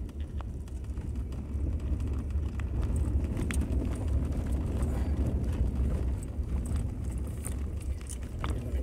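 Steady low road and engine rumble heard inside the cabin of a moving vehicle, with a few faint ticks.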